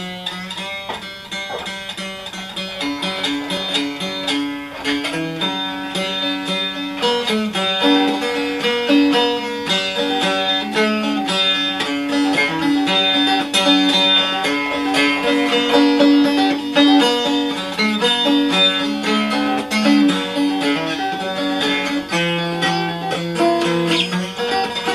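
Homemade five-string banjo with a maple syrup can for its body, played as a steady, unbroken run of plucked notes that grows a little louder over the first several seconds.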